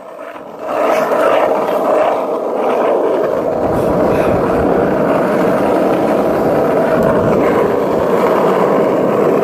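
Skateboard wheels rolling over rough asphalt: a steady, loud rumble from a moving board that sets in about a second in and holds evenly.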